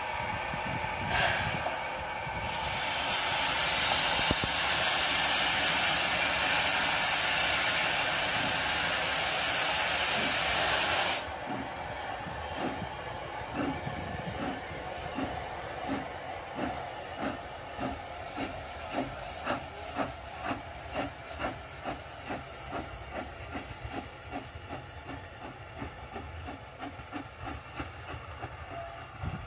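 1860s open-cab steam locomotive: a loud steady hiss of escaping steam that cuts off suddenly, then the exhaust chuffing as it pulls away, starting at about two beats a second, quickening and fading as it goes.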